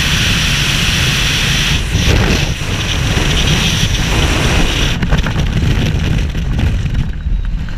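Freefall wind rushing and buffeting over a helmet-mounted camera, a loud steady hiss over a low rumble. About five seconds in, the hiss dulls and turns to a ragged, fluttering rumble as the fall slows with the parachute deploying.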